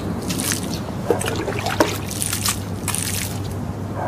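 Water running and splashing: a steady trickle with irregular sharper splashes.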